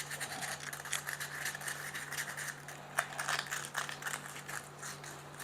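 Sandpaper scratching on a washer of a sterilizer's heating element as it is cleaned of particles, with small clicks and one sharper click about three seconds in.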